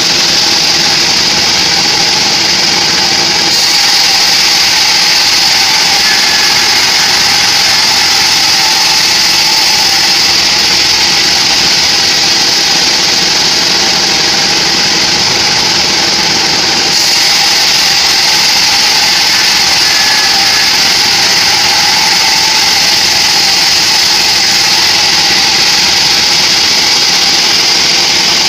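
Homemade band sawmill running with its blade cutting through a teak log: a loud, steady high-pitched hiss over the machine's running noise.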